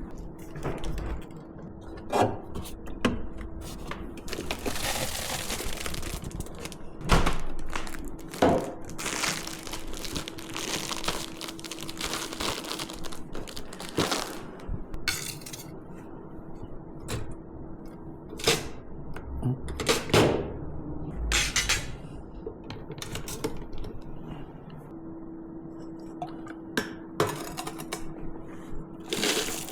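Dishes, bowls and utensils clinking and knocking as breakfast is served out, with stretches of rustling noise in between and a faint steady hum that comes and goes.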